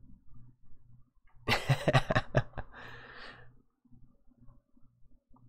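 A person's brief breathy vocal sound about a second and a half in, ending in a soft hiss of breath, over a faint steady low hum.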